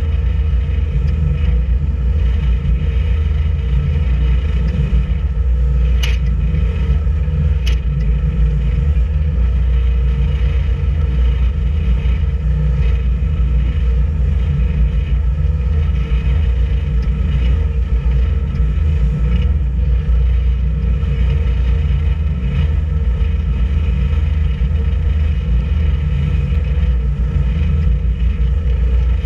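A boat's engine running steadily while under way, a heavy constant rumble with a steady hum. Two sharp clicks come about a quarter of the way in.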